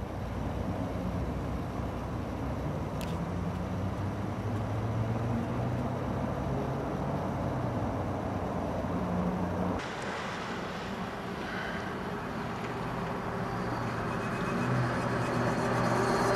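Outdoor street noise: steady road traffic and a low engine hum, growing louder near the end as a vehicle comes closer.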